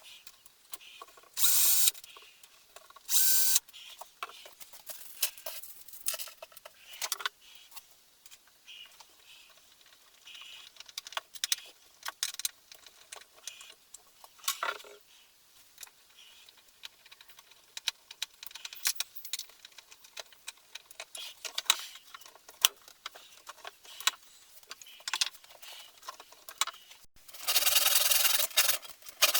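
Workshop handwork: two short bursts of a power tool near the start, scattered clicks and knocks of parts being handled, then a longer stretch of rubbing or scraping near the end.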